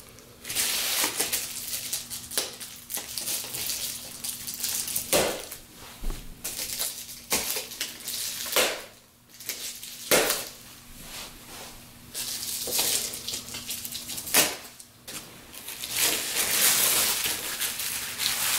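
Clear plastic packaging wrap rustling and crinkling as it is pulled off a rolled-up window blind, in irregular spurts with a few sharper crackles.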